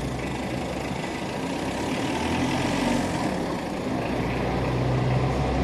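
A motor vehicle engine running low and steady amid street noise, the low hum growing a little louder near the end.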